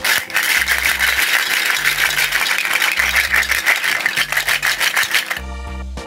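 Plastic toy fruit and vegetable pieces rattling and clattering together in a plastic basket as it is shaken, over background music with a repeating bass line. The rattling stops about five seconds in, leaving only the music.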